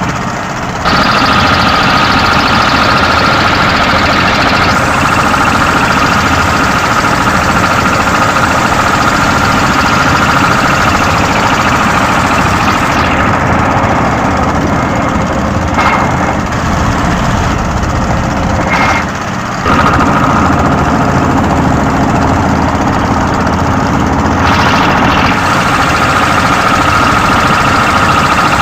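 Small purse-seine fishing boat's engine running steadily under way, a loud rumble with a constant high whine on top. The sound dips briefly just after the start and again about two-thirds of the way through.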